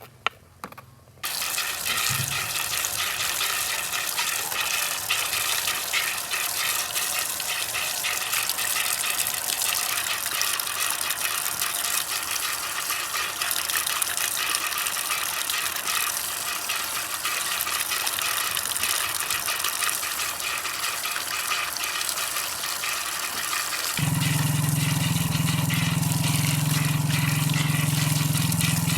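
Water running hard from a tap, as when filling a pot or rinsing in a kitchen sink. Near the end a steady low hum joins it.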